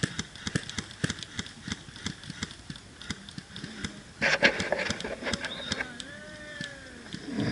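Footsteps of a person moving on foot, a quick, irregular run of short steps, with a louder rustling burst about four seconds in.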